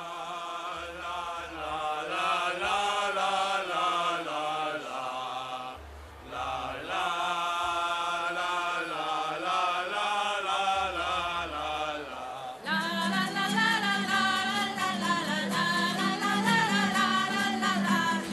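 Mixed choir of women's and men's voices singing in close unison, chant-like, with a short break about six seconds in. About twelve seconds in the sound turns louder and fuller as strummed acoustic guitars come in under the voices.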